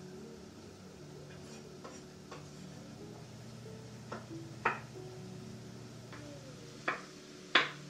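Small hard knocks and clicks of a child's wooden toy being pushed and tapped on a step: a few faint ticks first, then sharper single knocks spaced a second or more apart, the loudest near the end, over soft background music.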